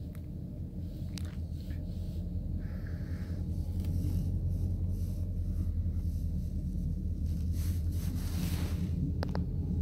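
TP&W 3440 diesel locomotive's engine running with a low, steady rumble that grows louder as it approaches.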